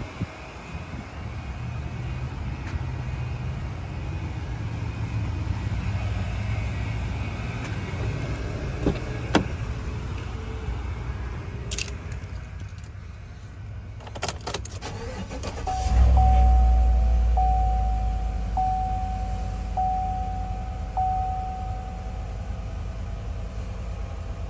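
2018 Chevrolet Silverado's V8 cranking and catching about sixteen seconds in, then settling into a steady idle. A dashboard chime pings about once every second and a quarter for several seconds as it starts. Before that come a few clicks of the door and keys over outdoor background rumble.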